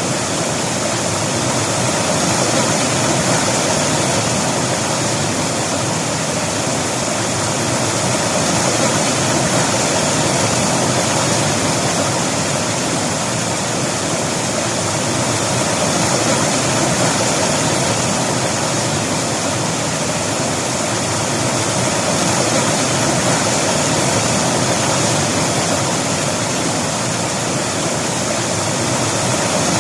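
River water flowing and rushing over rocks in a steady, loud rush that swells and eases slightly every few seconds.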